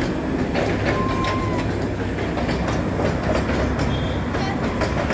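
Darjeeling Himalayan Railway narrow-gauge passenger coaches rolling past, wheels clacking over the rail joints over a steady rumble.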